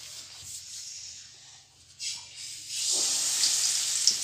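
Malpua batter ladled into hot oil in a kadhai, setting off a loud, steady frying sizzle about three seconds in; before that, only a faint hiss from the oil.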